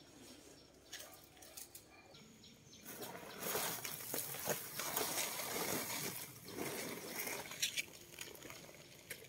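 Woven plastic sack rustling and crinkling as it is handled, starting about three seconds in and lasting about five seconds.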